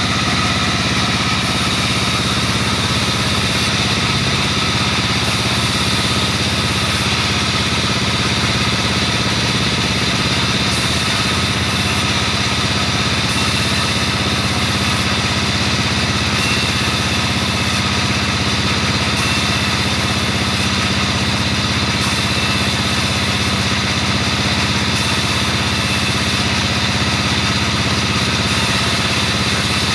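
Sawmill machine's engine running steadily at an even level, with a steady pitch that does not rise or fall under load.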